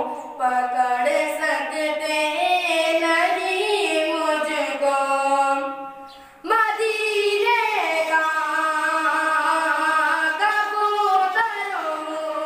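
A boy singing an Urdu nazm solo and unaccompanied, in long held, ornamented notes, with a short breath pause about six seconds in.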